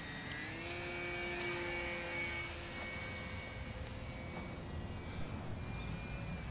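Small electric model plane's brushless motor (Waypoint W-E2205-32) spinning an APC 6x4 propeller under power: a steady high whine that rises a little in pitch about half a second in, then fades as the plane climbs away.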